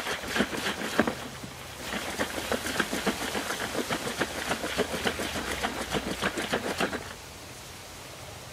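Liquid sloshing and thudding inside a plastic container of Nijo Lacto bacterial pond treatment as it is shaken vigorously, several strokes a second, to mix settled sediment back into the liquid. It pauses briefly about a second in and stops abruptly about seven seconds in.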